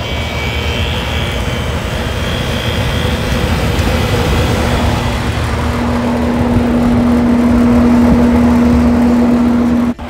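Heat pump package unit running: a steady rush of fan air with a steady hum that comes in about halfway and grows louder, the sound cutting off suddenly at the end. The blower has been wired straight to the contactor to bypass a relay suspected of tripping, and the unit is now producing heat.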